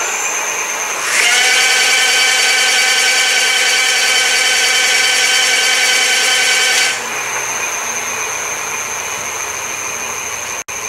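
Dual-drive electric bike's 1600-watt mid-drive motor and rear hub motor running together, spinning the lifted rear wheel. A high whine winds up quickly about a second in, holds steady for about six seconds, then stops.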